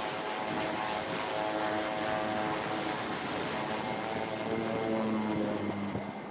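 Breguet Alizé's turboprop engine running at full power through a catapult launch and climb-out, a steady propeller drone under a high turbine whine. Near the end the whine fades and the engine tones drop slightly in pitch as the aircraft pulls away.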